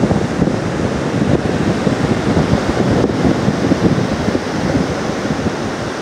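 Wind buffeting the microphone in gusts, a rumbling flutter over the wash of surf breaking on the beach.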